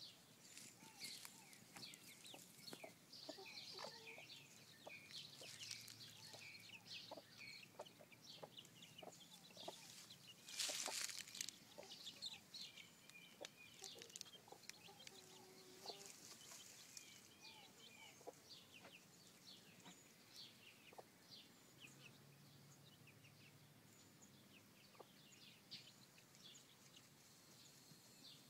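Australorp hens dust-bathing, faint: soft low clucking and murmuring with many short high chirps, and a brief loud rustling burst about a third of the way through.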